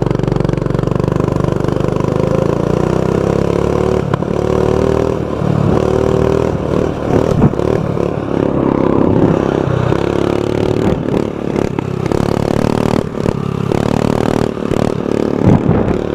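Baja Warrior mini bike's 196cc single-cylinder engine, fitted with a homemade bent-pipe tailpipe, running while the bike is ridden. The engine pitch rises and falls with the throttle, and clattering knocks come in the second half.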